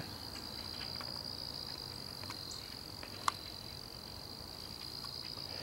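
Insects singing outdoors as one steady, high, continuous drone. A single short click sounds about three seconds in.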